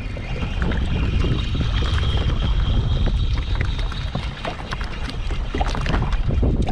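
Wind buffeting the camera microphone in a steady low rumble, with small waves slapping and splashing against a plastic kayak hull.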